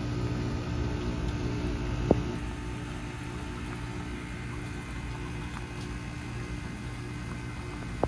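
Bryant Preferred Series heat pump outdoor unit running with a steady hum during its defrost cycle, with one sharp click about two seconds in.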